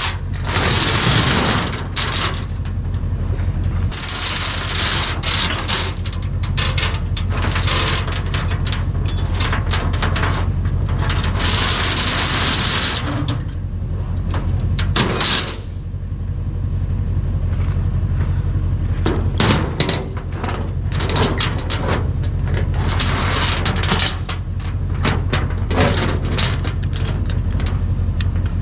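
An engine running steadily, with repeated bursts of hissing noise and scattered clanks over it.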